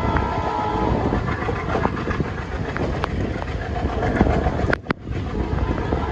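Passenger train coaches running on the track round a curve, heard from a coach: a steady rumble of wheels on rails with sharp clicks over rail joints. A brief high tone sounds near the start, and the sound drops out for a moment just before five seconds in.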